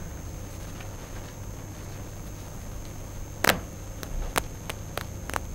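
Writing on a board: one sharp, quickly falling stroke about three and a half seconds in, then a run of short taps, about three a second. A steady low hum lies underneath.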